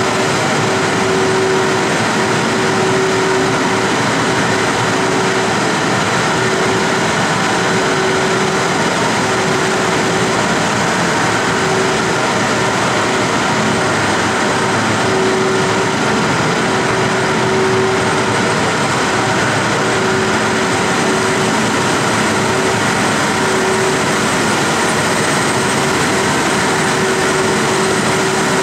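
Automatically fed wood-chip biomass boilers running in their boiler house: a steady mechanical hum and hiss from the fans and feed machinery, with one constant low note throughout.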